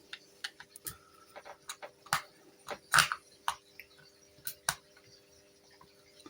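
Small, sharp clicks and taps of metal gun parts and a screwdriver being handled while a replica airgun pistol is stripped down, coming irregularly with the loudest about three seconds in, over a faint steady hum.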